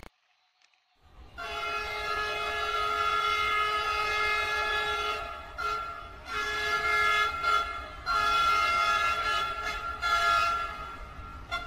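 Electronic train-horn sound from a battery-operated toy steam locomotive: long, steady horn-like tones that start about a second in and break off briefly several times.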